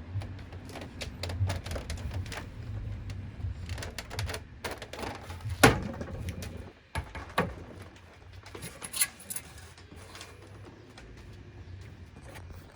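Handling noise as a flat-screen TV is lifted and set up on a table: scattered knocks and clicks of plastic and of the set against the table, the loudest knock about halfway through, over a low rumble that dies away in the second half.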